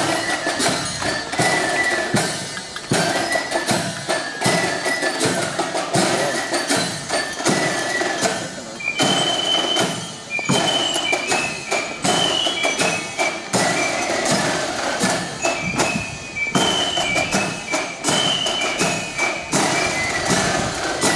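Marching band playing a march: steady drumbeats under a high melody of short notes that moves up in pitch about halfway through.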